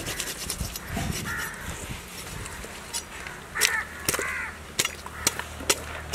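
Crows cawing a few times, the two loudest calls close together past the middle, with several sharp clicks in between.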